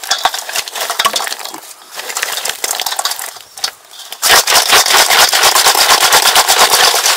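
River snail shells clicking against each other and a stainless steel bowl as they are mixed by hand. At first the clicks are scattered. About four seconds in they become a dense, loud rattle of rapid clicks as the snails are scooped and turned over.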